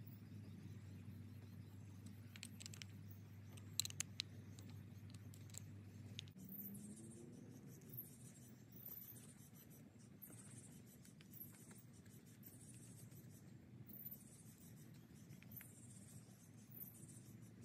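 Faint scratching and a few sharp clicks of a screwdriver driving the small screws into an ATV carburetor body, over a low steady hum that stops about six seconds in.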